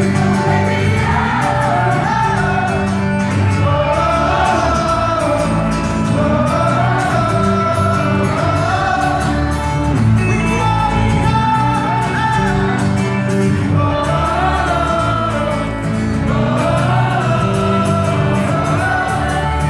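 Live band music: guitar chords played under a sung vocal line, amplified in a large hall.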